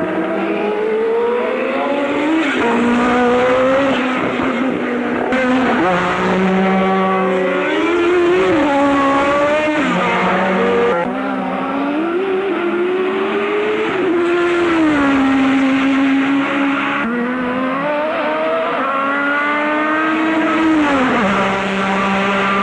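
1984 Formula 1 car engine at high revs, its pitch climbing under acceleration for a few seconds and then dropping off, over and over through the stretch. A second, steadier and lower engine note comes and goes beneath it.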